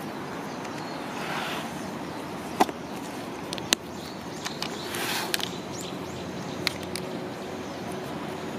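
Hands handling a leather planner and a leather zip pen case: rustling of leather and paper, with two sharp clicks about two and a half and three and a half seconds in and a few lighter clicks after, over a steady background hiss.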